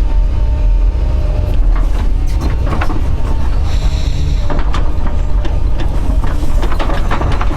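Doosan DX140 excavator working, its diesel engine running steadily under load, with repeated clanks and knocks from the machine. There is a brief high squeal about four seconds in.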